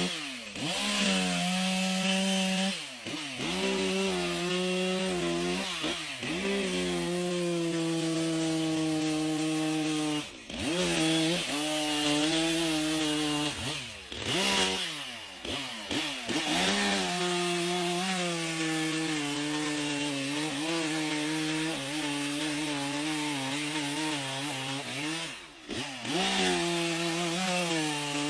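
Chainsaw running under load while cutting wood, its engine note steady at high revs, then dropping and climbing back about six times as the throttle is eased and opened again.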